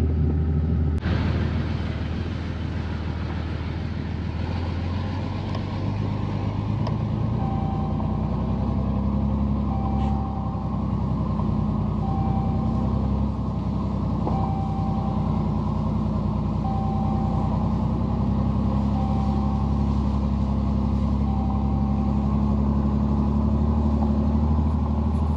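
Vehicle engine running steadily, with a low drone. About seven seconds in, a short beep starts repeating, seven times, a little over two seconds apart.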